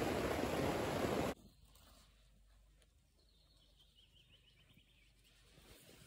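Rain falling loud and steady on a canvas bell tent, cutting off abruptly about a second in. Faint outdoor quiet follows, with a short faint bird trill in the middle.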